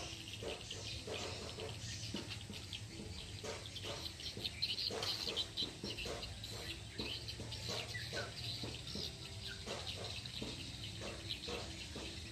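Birds chirping repeatedly in short calls.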